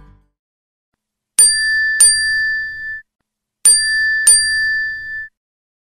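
Bright ding chime sound effect: two quick dings, then the same pair again about two seconds later, each pair ringing for about a second before cutting off abruptly.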